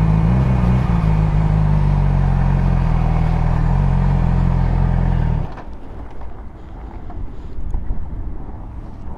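Yamaha R6 inline-four motorcycle engine running at low revs, steady, then cutting off abruptly about five and a half seconds in, leaving only faint wind noise on the microphone.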